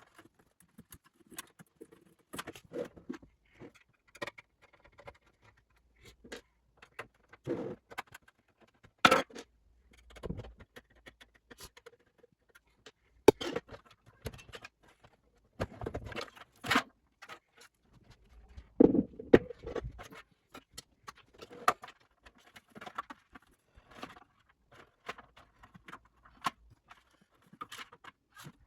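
Irregular clicks, knocks and light metallic rattles of desktop PC parts being handled, with a few sharper knocks along the way.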